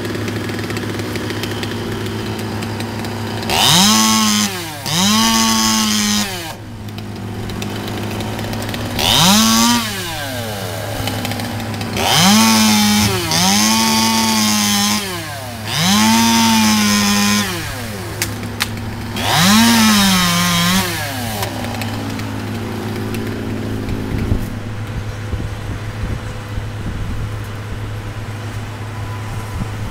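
Chainsaw revving up to full speed in seven bursts of a second or two, dropping back to idle between them, over a steady low engine hum.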